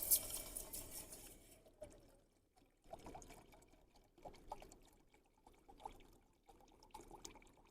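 Water being poured into camp cookware: one louder pour at the start that fades over about two seconds, then several short, fainter splashes.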